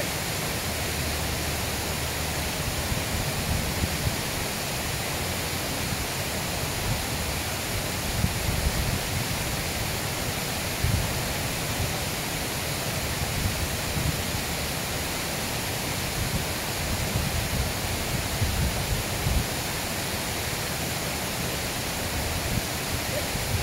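Steady rush of river water flowing over rocks, with occasional low gusts of wind buffeting the microphone.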